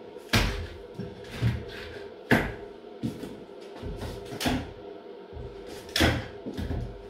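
Hammer knocking at a false beam fixed to a wall: three loud, sharp knocks a couple of seconds apart, with lighter taps between.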